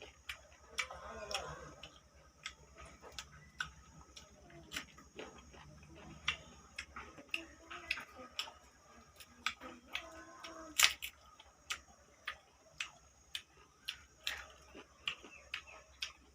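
Close-up chewing of boiled pork salad: a run of irregular wet mouth clicks and smacks, about two or three a second, with a brief hum of appreciation once or twice.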